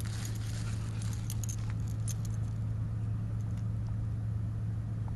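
A steady low drone throughout, with the metal tags on a small dog's collar jingling lightly as it moves during the first couple of seconds.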